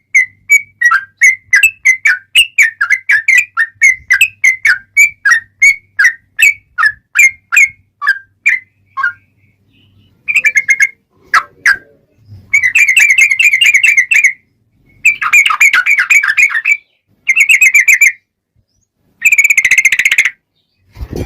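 Yellow-vented bulbul (trucukan) singing loudly: a string of separate chirping notes, about three a second, that slows and stops about nine seconds in. Then comes a series of long rapid trills (ropel), each lasting one to two seconds, with short pauses between them.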